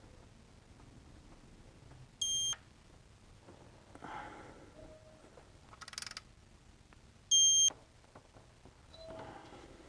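Digital electronic torque-angle wrench beeping twice, a short high electronic beep about two seconds in and a louder, slightly longer one about five seconds later, signalling that a cylinder head bolt has reached the set angle. Faint rustling and scraping sounds in between.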